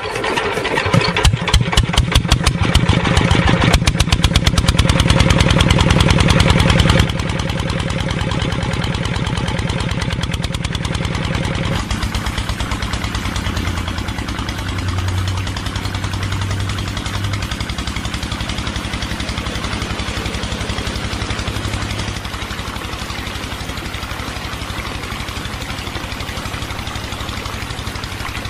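Hand-cranked single-cylinder stationary diesel engine starting: slow chugs that quicken over the first few seconds, then running at a steady chug. The sound drops in loudness about seven seconds in.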